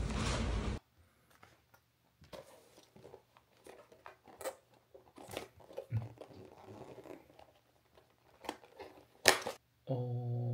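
Cardboard food box being pried open by hand: scattered quiet crinkles, taps and tearing of the paperboard and its tabs, with a sharp snap about nine seconds in as it gives. A loud steady noise cuts off abruptly under a second in, and a short steady hum sounds near the end.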